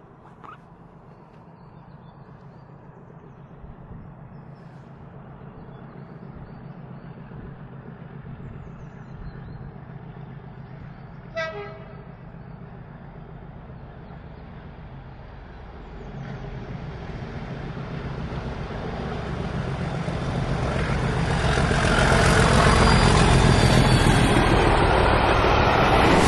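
Class 37 and Class 50 diesel locomotives (37403 and 50008) hauling a railtour approach and pass at speed. Their engine rumble builds steadily from about sixteen seconds in and is loudest over the last few seconds as the locomotives and coaches go by. A brief train horn sounds about eleven seconds in.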